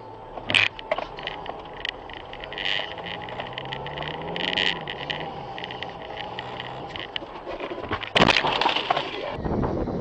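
Car engine running, heard from inside a car driving over a rough snowy track, with repeated knocks and rattles and a loud crunching burst about eight seconds in. Near the end a quad bike engine takes over.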